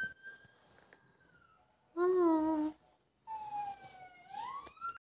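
A siren wailing, its pitch sliding slowly up and down in long sweeps. About two seconds in there is a brief hummed voice, the loudest sound. All sound cuts off just before the end.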